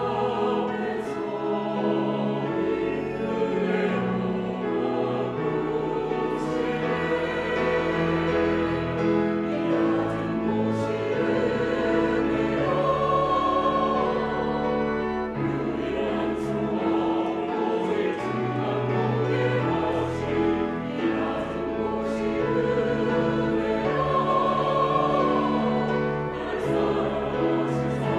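Church choir singing a slow anthem in sustained, full harmony, accompanied by piano and organ holding low bass notes.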